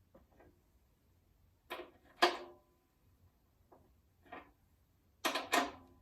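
A series of about six short knocks and clacks, as of hard objects being handled and set down. The loudest comes a little past two seconds in and rings briefly; a quick double knock follows near the end.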